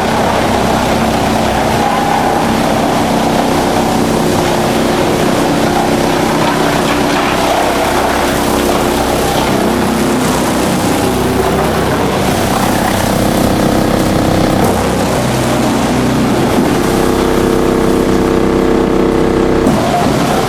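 Drum wood chipper running, a loud steady mechanical drone whose pitch shifts slightly over time.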